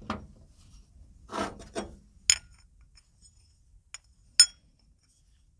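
Metal scooter variator parts handled on a steel workbench: some rubbing and scraping, then two sharp metallic clinks about two seconds apart, the second the loudest.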